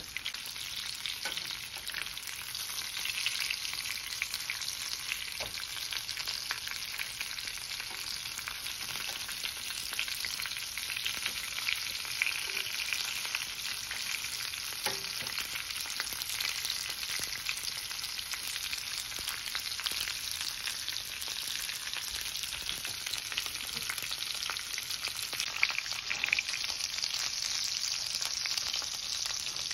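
Two steaks searing in butter in a nonstick frying pan, sizzling steadily with a fine crackle, with a few faint clicks along the way.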